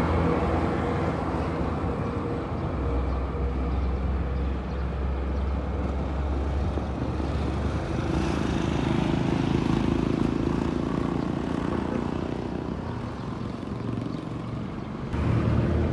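Street traffic going by: vehicle engines running and passing, with a motor scooter going past about halfway through. A heavier low engine rumble comes in suddenly near the end.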